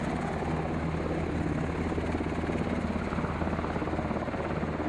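Military helicopter running steadily, a constant engine and rotor noise with a low hum underneath.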